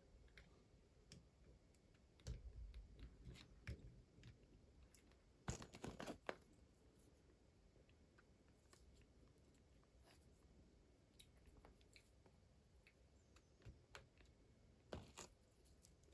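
Faint handling sounds of a toy and its packaging: scattered small clicks and taps, with short crinkling rustles about two seconds in, the loudest about five and a half seconds in, and another near the end.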